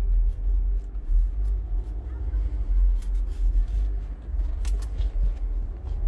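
A loud, low, fluctuating rumble with a few faint clicks scattered through it.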